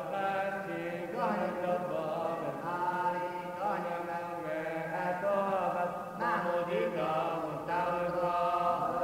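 Syriac Orthodox liturgical chant: voices sing a melody of long held notes with ornamented, gliding turns between them.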